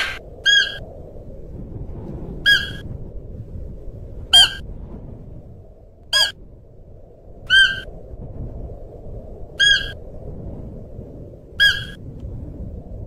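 Siberian musk deer calling: seven short, high-pitched calls about two seconds apart, a couple of them sliding sharply down in pitch, over a steady low background noise.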